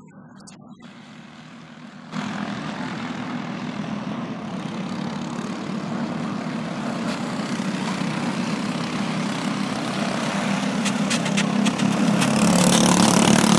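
A pack of Briggs & Stratton 206 single-cylinder four-stroke racing kart engines running at speed on track. Quiet at first, the engine sound jumps up about two seconds in and grows steadily louder as the karts come closer, loudest near the end.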